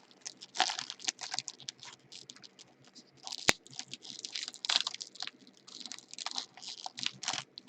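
Trading cards and foil pack wrappers being handled: quick, irregular crisp clicks and rustles as cards are slid and flicked, with one sharp snap about three and a half seconds in.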